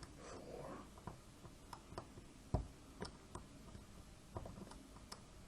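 Faint, scattered small metallic clicks and ticks of a pick and tension tool working the pins of a Burg-Wächter Boccia 450/30 dimple padlock, with one sharper click about two and a half seconds in.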